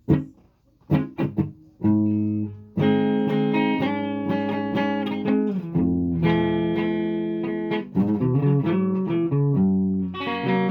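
Guitar playing: a few short, sharp hits in the first second and a half, then held chords that ring on and change every couple of seconds.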